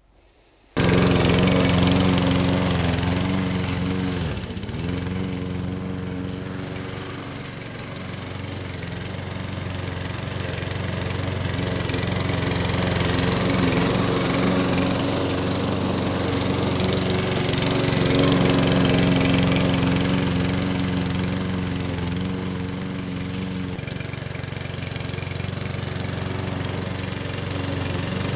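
Petrol rotary lawnmower with a 141cc OHV engine running at a steady speed, starting abruptly just under a second in, with a brief dip in engine speed about four seconds in and loudness slowly rising and falling.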